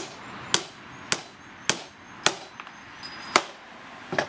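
Steel claw hammer striking nails into a timber block, one sharp blow about every half second. Around three seconds in come a few quick blows with a high metallic ring, and there is another knock near the end.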